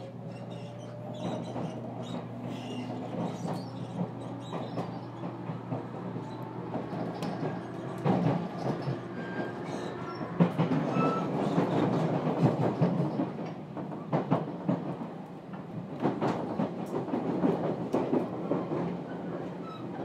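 Inside a JR Kyushu 811 series motor car with thyristor phase-control equipment, running on the line. A steady electrical hum runs under it all, and a thin whine rises in pitch over the first couple of seconds. Wheels click and knock over rail joints, loudest in the middle.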